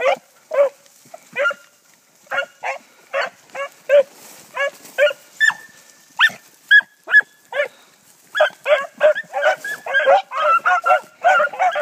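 A pack of hounds baying as they run a scent trail through brush. The short barks overlap from several dogs, thin out to scattered single barks and a few longer drawn-out bawls, then the whole pack opens up together again about eight seconds in.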